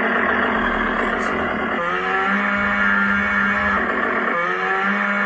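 Electronic chainsaw prop replica playing a loud recorded chainsaw engine sound through its built-in speaker, switched on just before. The engine note shifts in pitch about two seconds in and again near four and a half seconds.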